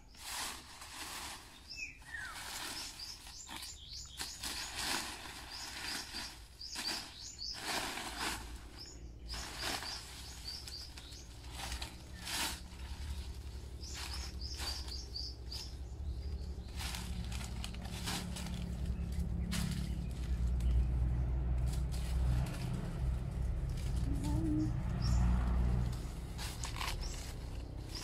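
Dry nipa palm leaves rustling and crackling as they are handled to make pawid thatch, with birds chirping at intervals. A steady low rumble comes in about halfway.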